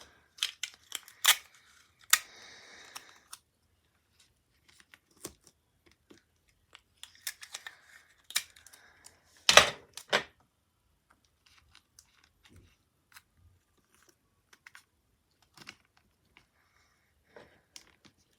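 Clear sticky tape being pulled off and torn, with clicks and knocks of pieces being pressed down over plastic wrap on a cardboard box. There are two short rasping pulls, the first about 2 seconds in and the second around 7 to 8 seconds, and a sharp knock near 10 seconds.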